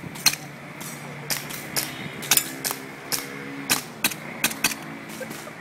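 A string of about ten pistol shots fired in quick succession, spaced irregularly between half a second and a second apart.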